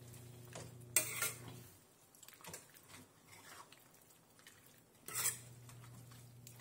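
A spoon stirring and scraping through shredded beef and vegetables in a non-stick frying pan. It clatters against the pan twice, about a second in and again about five seconds in, with softer scraping between.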